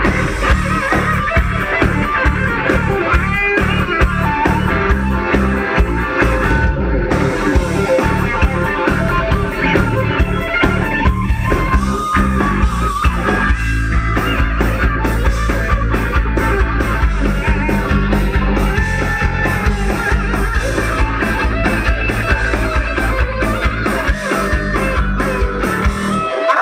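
Heavy metal band playing live, amplified through a PA: distorted electric guitars with a bending lead guitar line over bass and a steady drum beat, with no vocals.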